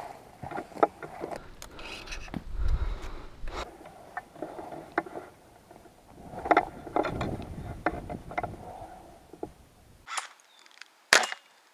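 Wind buffeting the microphone in gusts, with rustling and scattered clicks from gear being handled. Near the end come two sharp snaps, the second the loudest.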